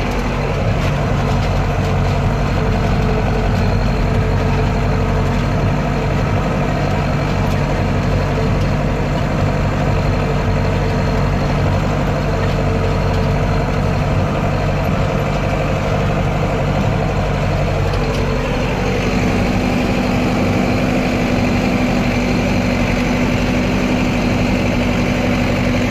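Tractor engine running steadily under load, pulling a meadow harrow across grassland. The engine note rises slightly about eighteen seconds in.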